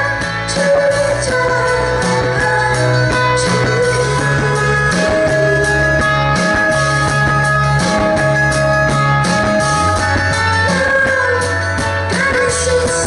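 Live rock band playing: a woman's voice singing a gliding melody into a microphone over guitar and held low notes.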